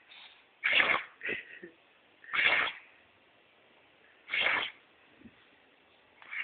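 Dog sneezing again and again in a fit: three sharp sneezes about two seconds apart, a smaller snort just after the first, and another sneeze starting at the very end.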